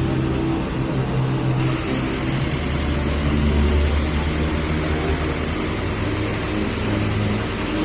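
Engine of a street-light maintenance truck running steadily.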